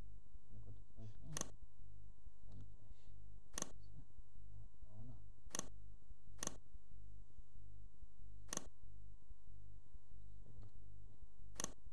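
Computer mouse clicking: six sharp single clicks, a second or two apart, over a steady low hum.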